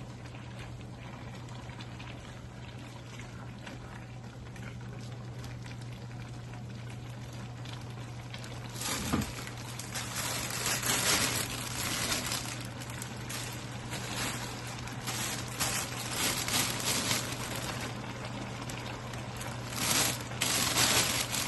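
Stir-fried vegetables with freshly added bean sprouts sizzling and simmering in a hot pan, over a steady low hum. From about nine seconds in the sizzling comes in louder, irregular crackling bursts.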